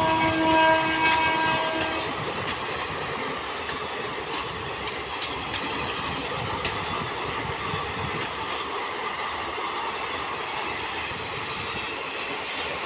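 Indian Railways train horn holding one long steady blast that cuts off about two seconds in, followed by the steady rumble and wheel clatter of passenger coaches running past.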